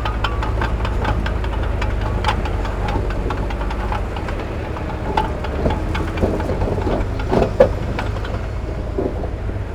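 Heavy diesel earthmoving machinery running steadily with a deep rumble, with scattered metallic clanks and knocks. The loudest clank comes about seven and a half seconds in.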